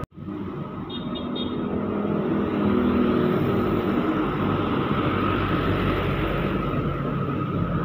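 Road traffic: a light cargo truck passes close by, its engine and tyre noise rising to the loudest point about three seconds in, followed by steady road noise as another truck approaches.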